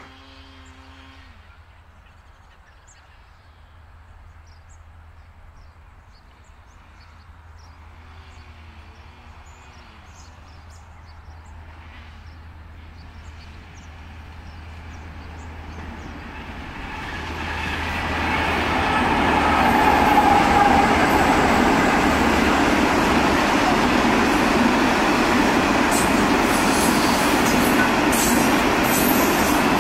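Freight train led by two G class diesel locomotives approaching from a distance, its sound growing steadily louder until the locomotives pass close about two-thirds of the way in. The hopper wagons then roll by with a steady rumble of wheels on rail and clicking toward the end.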